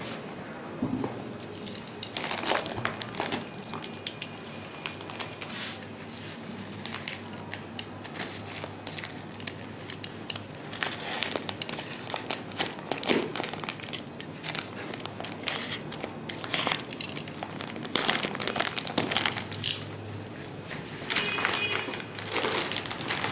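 Clear plastic packaging bag crinkling and rustling in irregular bursts as it is handled, slit open and pulled off a new laptop.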